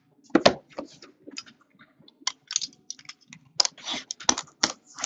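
Cardboard baseball-card boxes (2012 Panini Prime Cuts) being lifted, set down and handled on a table: an irregular run of light clicks and taps, busiest near the end.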